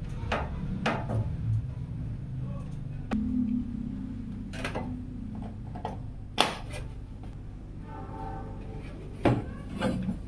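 Scattered clicks and knocks of PC case parts being handled and fitted, the loudest about six seconds in, over a steady low hum. A short pitched sound comes about eight seconds in.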